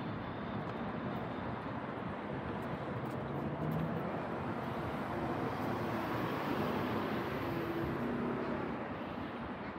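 Street traffic noise, with a car driving past about midway through, its engine and tyre noise swelling and then fading.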